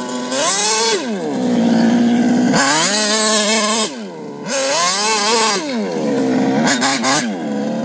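HPI Baja's 59cc stroked, CNC-ported two-stroke engine idling and being revved four times: three rises in pitch that each hold for about a second before dropping back to idle, then a quick double blip near the end.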